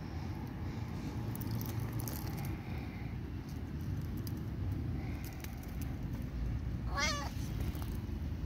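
A black Bombay cat gives one short, wavering meow about seven seconds in, over a steady low background rumble.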